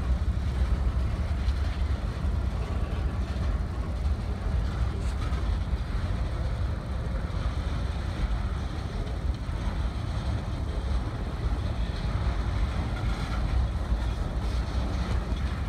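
Empty centerbeam flatcars of a freight train rolling past, a steady low rumble of wheels on rails.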